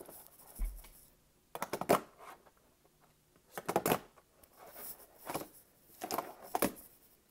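Tech Deck fingerboard clacking on cardboard as it is popped and flipped for kickflips: about four short clusters of sharp taps and clatters, with quiet between.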